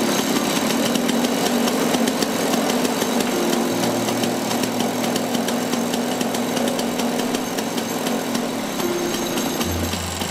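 Vintage Poinsard et Sivigny single-cylinder marine engine running steadily on a test stand, firing rapidly and evenly: the engine back in running order after ninety years, its settings being worked out.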